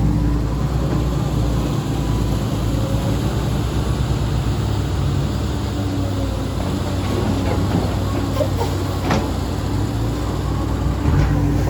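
CAT 320D2 GC excavator's diesel engine running steadily while digging, with a sharp knock about nine seconds in.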